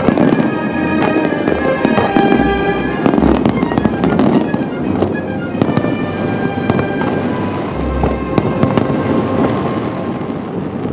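Aerial fireworks display: many shells bursting and crackling in quick succession, with sharp bangs throughout, and music playing alongside.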